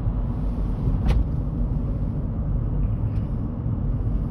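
Car driving, heard from inside the cabin: a steady low rumble of road and engine noise, with a single short click about a second in.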